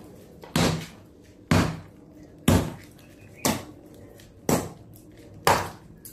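A metal hand tool strikes concrete in steady blows, about one a second, each with a brief metallic ring, as the concrete wall of a tomb niche is broken open.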